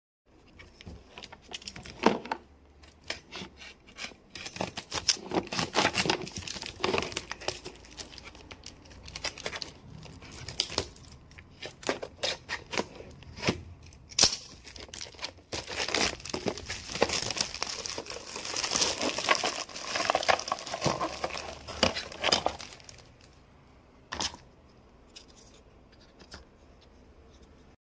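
Packaging being torn open and crinkled while unwrapping a turntable: irregular tearing and rustling with a few sharp snaps, thinning out over the last few seconds.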